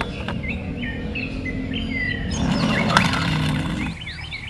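Small birds chirping in short, repeated calls, over a low steady hum, with a couple of faint clicks.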